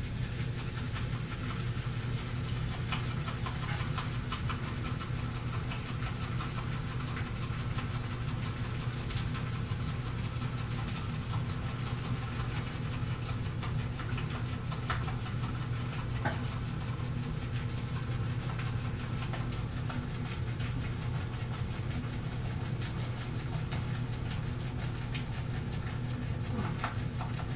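Shaving brush swirled steadily on a hard puck of Mitchell's Wool Fat shaving soap, a continuous fine scratchy swishing as the bristles load up with soap, over a steady low hum.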